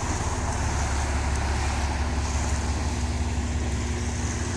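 Steady low rumble of wind buffeting the microphone, with the faint, steady hum of a passing motorboat's engine underneath.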